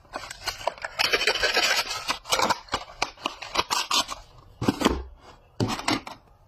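A bar of Lux soap and its wrapper being unwrapped and handled: a string of short scratchy, crinkling rubs, denser about a second in, with two separate bursts near the end.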